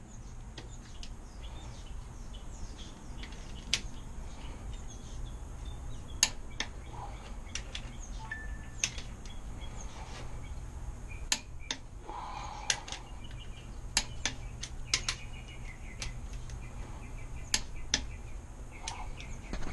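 Click-type torque wrench ratcheting and clicking as the connecting-rod cap bolts are tightened to final torque: scattered sharp metallic clicks at an irregular pace, some coming in quick little runs.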